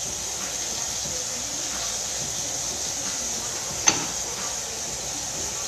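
Kitchen faucet running steadily into the sink with an even hiss, and one sharp clink about four seconds in.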